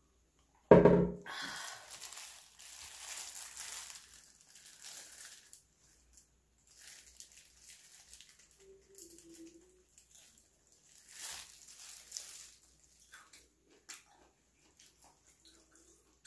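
Close-miked eating sounds: a whole cooked octopus pulled apart and bitten, with wet chewing and crackly rustling in irregular spells. A sharp knock about a second in is the loudest sound.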